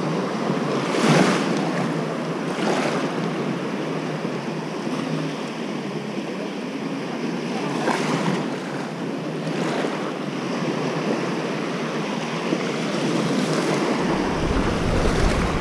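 Small surf waves washing up a sandy beach in repeated swells, with wind on the microphone that turns into a low rumble near the end.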